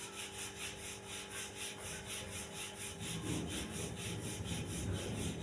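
Wooden rolling pin rolling out roti dough on a floured countertop: quick, even back-and-forth strokes, about four a second, with a soft rubbing sound.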